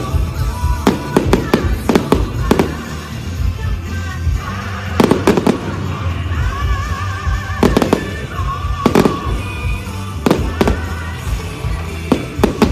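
Fireworks going off in a show, a series of sharp bangs coming at irregular spacing, some in quick clusters of two or three. They sound over loud music with a steady bass and a wavering melody.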